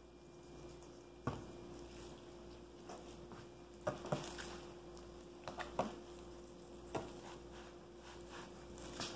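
A butcher knife working raw meat off a hind quarter on a table, with soft wet squishing of the meat being handled and several sharp knocks of the knife and meat against the table. The sounds are faint, over a steady low hum.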